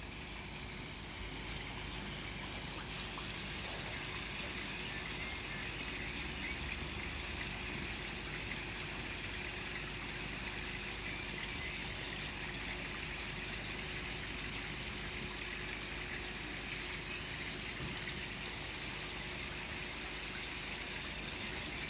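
Water pouring steadily from a koi pond's sheet waterfall into the pond.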